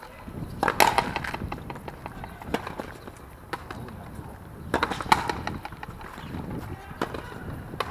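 Frontenis rally: the rubber ball is struck by strung rackets and smacks against the fronton wall and floor in sharp, separate cracks, the loudest about a second in and near five seconds. Players' shoes run and scuff on the court floor between the hits.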